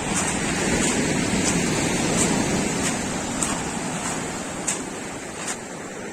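Sea waves washing onto the shore: a surge that swells within the first second, then slowly fades.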